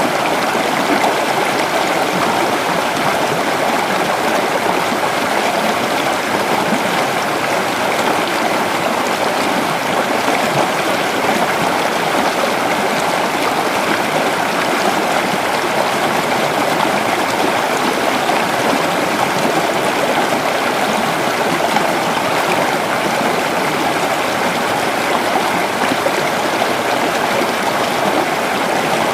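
A creek's water running steadily over rocks, a constant rushing babble with no breaks or changes.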